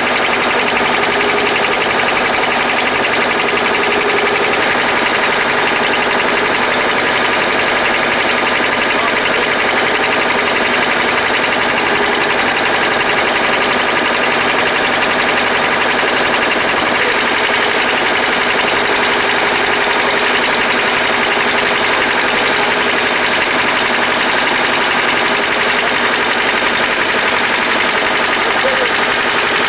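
An engine running steadily at an unchanging speed: a constant, even drone.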